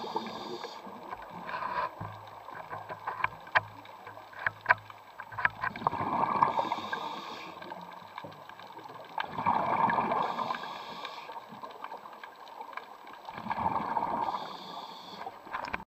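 Scuba diver breathing through a regulator underwater: exhaled bubbles rush out in bursts of about a second and a half, roughly every four seconds. Scattered sharp clicks come between the breaths.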